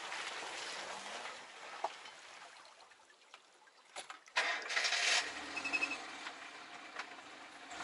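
Four-wheel-drive car driving along a rough dirt track, heard from low beside a wheel: tyre and road noise with the engine running low underneath. The noise fades for a moment, then comes back loud and sudden about four and a half seconds in.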